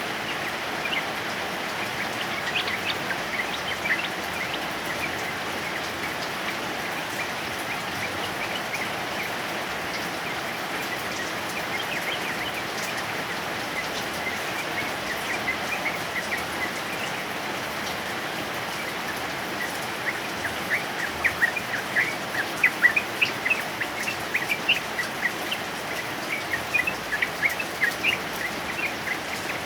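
Steady heavy rain with a male yellow-vented bulbul (trucukan) singing over it. Short bright notes are scattered through, and rapid runs of notes come about two-thirds of the way in and again near the end.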